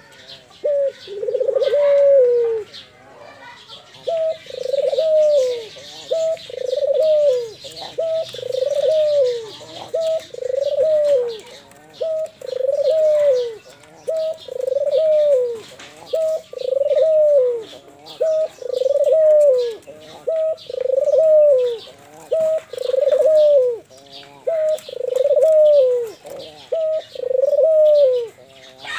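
Barbary dove (domesticated ringneck dove) cooing over and over in a steady series of arched coos, about three every four seconds. Faint high chirping sounds behind the coos.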